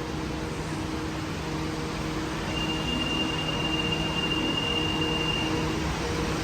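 Rubber-tyred metro train running slowly on wet track in the rain: a steady hum over a wash of noise, with a thin high steady tone lasting about three seconds in the middle.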